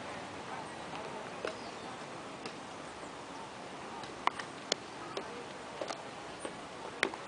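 A few scattered sharp clicks and knocks over steady outdoor background noise. Two loud clicks come about four seconds in, and another loud one comes near the end.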